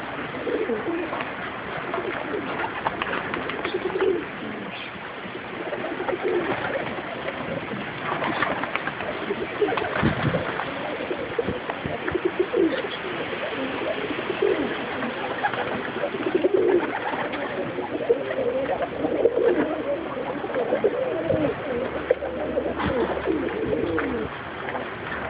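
Many domestic pigeons cooing over and over in a loft, low overlapping coos with no break, with an occasional sharp click or knock.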